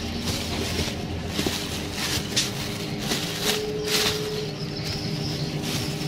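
Thin plastic bag crinkling and rustling as it is handled, with a few sharp crackles, over a steady low background hum.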